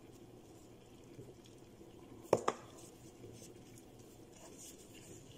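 Gloved hands quietly handling grape leaves and rice filling on a cutting board, with two sharp knocks close together a little over two seconds in.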